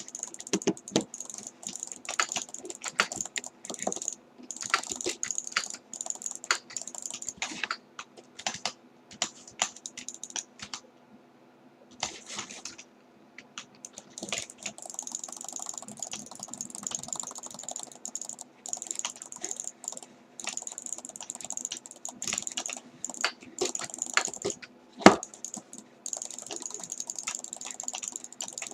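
Keys clicking in an irregular run of typing on a computer keyboard, with a pause of about a second and a half midway and one louder click near the end. A faint steady hum and hiss sit underneath.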